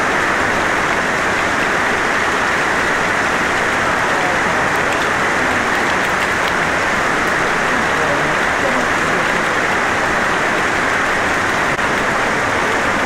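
Steady, even rush of running water with no change in level.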